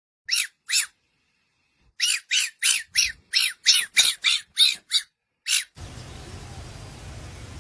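Short, harsh, high-pitched animal squawks: two single calls, then a quick run of about three calls a second. Near the end the calls stop and a steady outdoor background hiss takes over.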